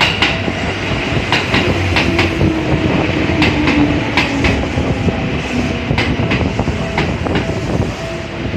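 Seibu New 101 series electric train passing over a level crossing, its wheels clacking in pairs over the rail joints, with a low hum that drops in pitch. A level crossing warning bell rings steadily behind it.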